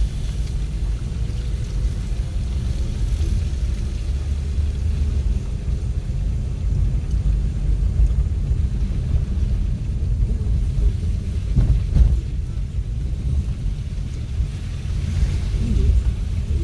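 Car driving over a rough, unpaved dirt-and-gravel road: a steady low rumble from the tyres and running gear, with one sharper bump about twelve seconds in.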